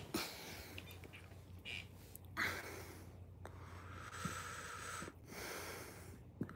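Quiet handling noise and fabric rustling close to the phone's microphone, with a few soft taps.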